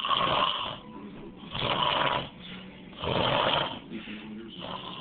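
A man snoring: three loud snores about a second and a half apart, then a weaker one near the end.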